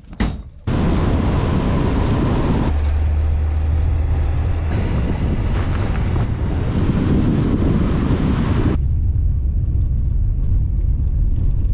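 Wind buffeting the microphone: a loud, even rush with heavy low rumble that breaks off abruptly about nine seconds in, leaving a quieter low rumble of a car driving.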